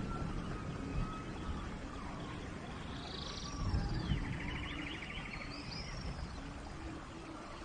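Forest ambience: several birds calling over a steady low rushing noise. The calls are rapid trills, buzzy notes and short whistled glides, with a run of short low notes in the second half.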